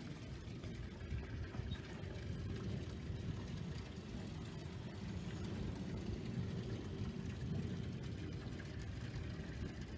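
A steady low mechanical rumble with a faint steady hum above it.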